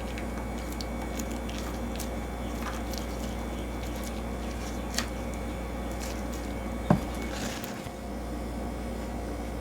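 Steady low hum with a few light clicks and taps, about five and seven seconds in, from plastic honey jars and their lids being handled while they are filled.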